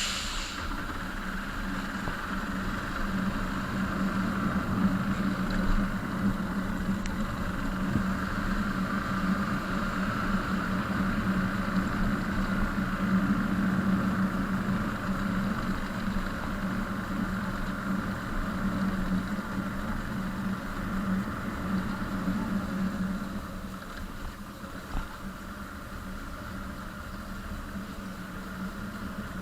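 Motorcycle engine running steadily, dropping a little in loudness about three quarters of the way through.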